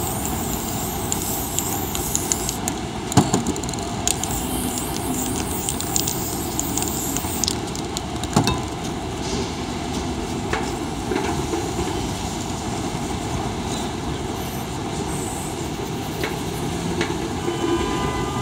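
Steady rumble of city street traffic, with a couple of sharp knocks about three seconds and eight seconds in.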